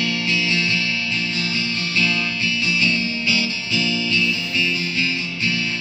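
Acoustic guitar strummed in a steady country rhythm: an instrumental break between the chorus and the next verse, with no singing.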